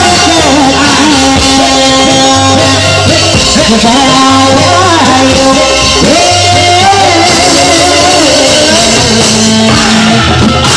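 Loud music with a sung melody, held and bending notes over a repeating low drum and bass pattern, as played to accompany a reog Indramayu masked dance troupe.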